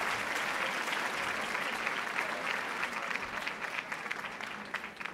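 Audience applauding, the dense clapping thinning into separate claps and fading out near the end.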